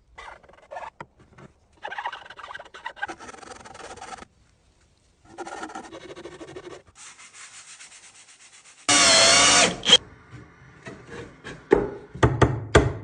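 Wooden boards being sanded by hand, in separate rasping stretches of a second or two. About nine seconds in a loud burst with a wavering whine lasts about a second, followed by a run of sharp knocks near the end.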